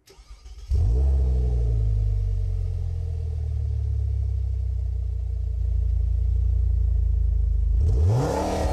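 Electronic engine sound from a toy Mercedes G-Class AMG model car with lights: a start-up about a second in, a steady low idle, then a rising rev near the end.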